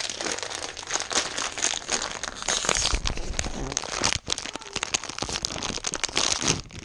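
Plastic packaging crinkling and rustling as it is handled and pulled open, a continuous dense crackle of small sharp crinkles.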